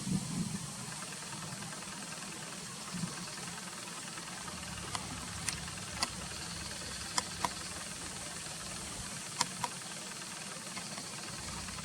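Steady hiss of running stream water, with several short sharp clicks between about five and ten seconds in.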